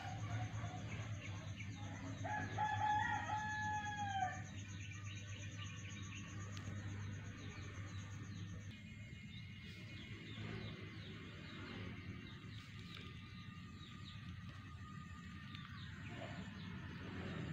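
A rooster crowing once, a drawn-out call of about two seconds starting a couple of seconds in. Small birds chirp and a steady low hum runs underneath.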